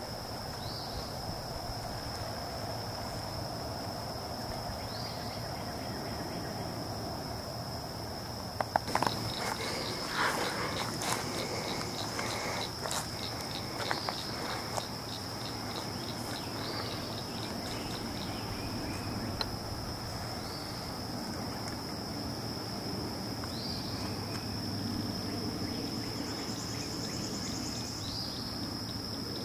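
Steady high-pitched insect chorus with a short rising chirp every few seconds. A cluster of knocks and rustles comes about a third of the way in.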